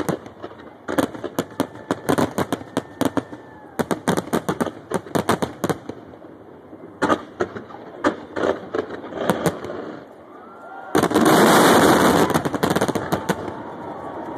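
Aerial fireworks finale barrage: shell bursts and reports going off in rapid succession, several a second, with a brief thinning after about six seconds. About eleven seconds in, a sudden loud, continuous blast of noise lasts about two seconds and is the loudest moment.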